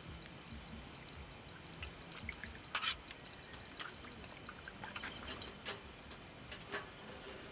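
Faint, steady insect chirping, about four short high chirps a second, with a few sharp clicks, the loudest about three seconds in.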